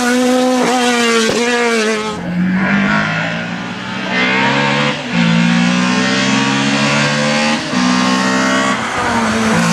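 Race car engine accelerating hard through the gears, its pitch climbing and dropping back at each upshift. About two seconds in, a deeper-sounding engine takes over, also pulling up through several gears.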